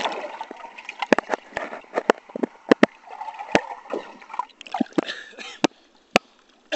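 Pool water heard from a camera held underwater: muffled sloshing and gurgling with many sharp clicks and knocks. The sound drops away about a second before the end, as the camera comes back above the surface.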